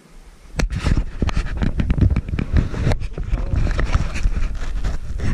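Handling noise on an action camera's microphone: irregular rubbing, scraping and low rumbling as the camera is gripped and moved by hand. There is a sharp knock about half a second in and another about three seconds in.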